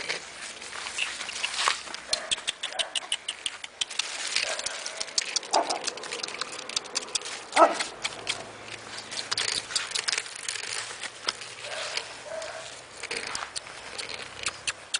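A husky puppy's paws pattering and scuffing on dry dirt and gravel in quick, irregular clicks, with a few short rising yelps from the puppy.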